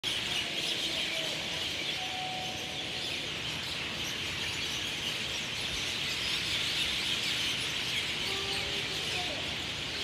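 A flock of common mynas chattering and chirping together in a dense, unbroken chorus, with a few lower whistled notes now and then.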